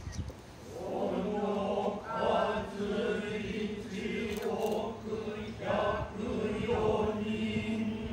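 Noh chanting (utai): slow, drawn-out vocal phrases on long held tones, each phrase wavering and breaking into the next every second or so.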